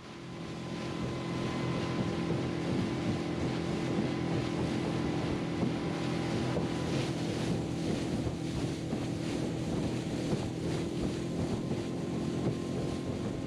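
Outboard motor of a small fishing skiff running steadily at speed, with wind rushing over the microphone.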